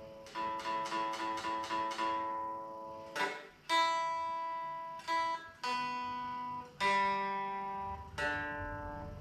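Electric guitar played clean: a quick string of repeated plucked notes, then single notes about once a second, each left to ring and fade.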